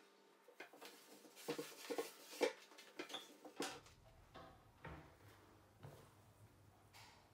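Light knocks and clatter of small household items being handled and set down while a bathroom cabinet is organised, with a cluster of louder knocks about two seconds in. A faint low hum starts a little past halfway.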